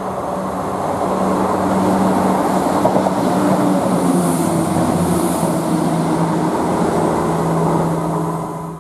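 ScotRail Class 170 Turbostar diesel multiple unit running past along the platform: steady hum of its underfloor diesel engines with wheel and rail rumble, growing louder as it comes alongside and staying loud while the carriages go by.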